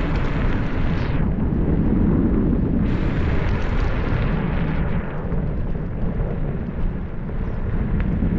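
Wind buffeting the microphone over steady vehicle and road noise while moving along a street. Two stretches of louder hiss come through, one near the start and one about three seconds in.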